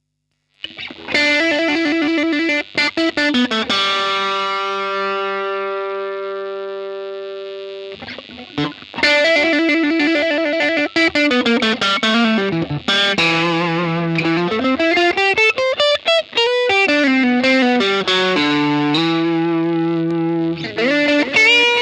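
Electric guitar played through effects pedals with a distorted tone, starting about half a second in. The lead line holds one long note that slowly fades, then moves into phrases with string bends and vibrato.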